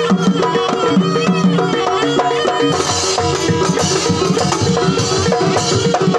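Jaranan gamelan music: drum strokes under a looping melody of repeated pitched notes, with a bright hiss joining about three seconds in.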